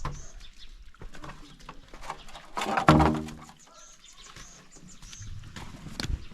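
Village farmyard sounds: small birds chirping again and again, scattered light clicks and taps, and one loud pitched animal call about three seconds in.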